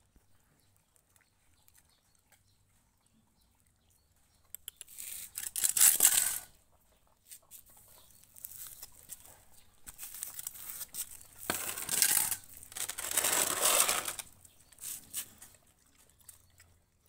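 Dogs eating rice from steel bowls: wet chewing and licking, in two loud bouts, one about five seconds in and a longer one from about ten to fourteen seconds, with scattered small clicks between.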